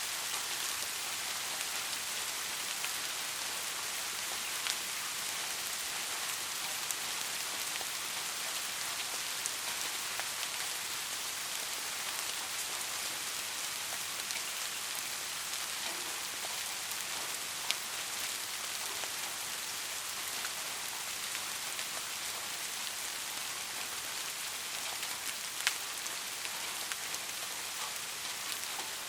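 Steady rain falling on a surface, an even hiss with scattered individual drop ticks, a few sharper ones standing out now and then.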